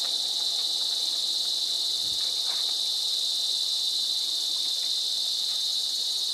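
Dense insect chorus, a steady high-pitched drone without a break.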